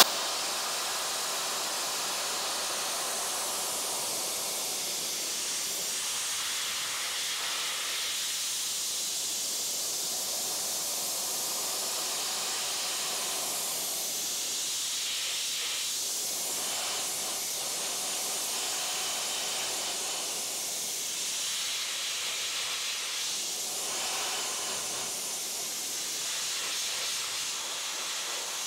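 Dry ice blaster running at its maximum 120 PSI with the dry ice feed turned fully up, blasting a car's painted fender: a steady hiss of compressed air and dry ice that switches on sharply at the start.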